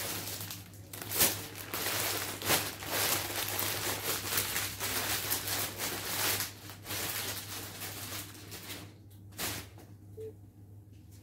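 Clear plastic bag crinkling and rustling as it is handled and pulled open, with a sharper crackle about a second in. It quietens after about nine seconds.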